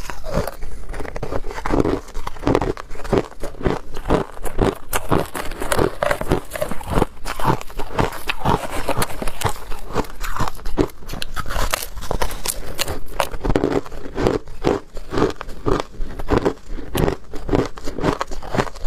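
Hard ice being bitten and chewed close to the microphone: a dense, continuous run of loud crunches and cracks.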